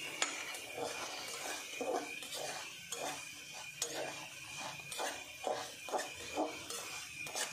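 A spoon scraping and clinking against an aluminium saucepan, about twice a second, as sliced nux vomica (kuchla) seeds are stirred while frying in desi ghee, over a steady high hiss.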